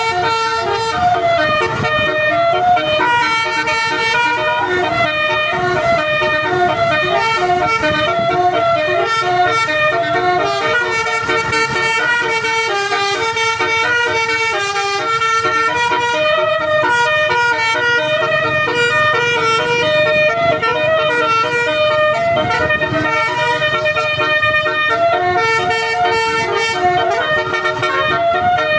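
A bus's telolet horn, a set of air horns, plays a melody without a pause: sustained tones stepping up and down in pitch.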